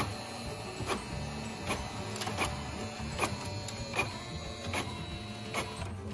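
HP OfficeJet Pro 6978 inkjet all-in-one making a black-and-white copy: its feed and print mechanism runs steadily, with a sharp click about every three-quarters of a second.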